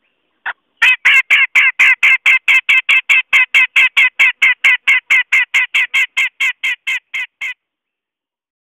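Cucak jenggot, a bearded bulbul of the genus Alophoixus, calling: a single note, then a fast, evenly spaced series of about two dozen calls, roughly four a second, getting a little quieter near the end. It is a recorded song played as a trapper's lure call (suara pikat) to draw wild birds down.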